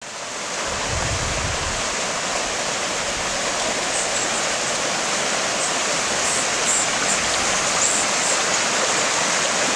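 Muddy flash-flood water rushing in a steady, even wash of noise as it flows across open ground.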